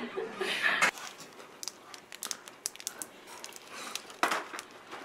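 A short laugh, then plastic wrapper crinkling and crackling in scattered small clicks as someone fumbles with a wrapped sweet and cannot get it open.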